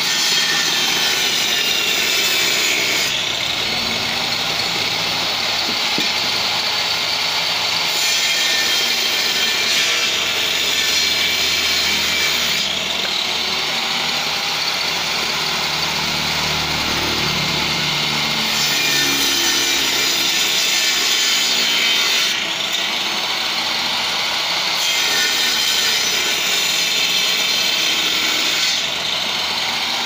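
Circular saw mounted under a homemade wooden table running continuously and cutting wooden boards. It makes repeated cuts a few seconds long, with the blade spinning freely between them.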